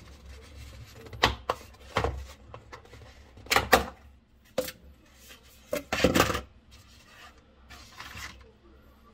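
Plastic containers handled on a glass refrigerator shelf: a box of single-dose eye-drop vials and its lid clicking and clattering against the shelf in a series of short knocks and rustles, loudest near the middle.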